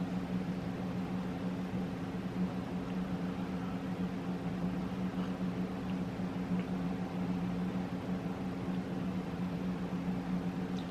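Steady low electrical hum under a faint even hiss, with a couple of faint ticks.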